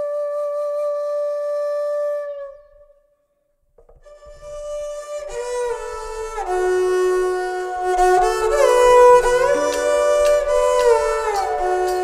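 Instrumental background music: a long held note fades out, a second or so of silence, then a new piece begins with several melodic lines, some notes sliding in pitch, over a soft low accompaniment.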